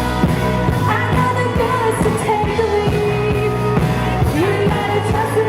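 Pop-rock band music with a sung vocal line of long held notes over bass and a steady drum beat.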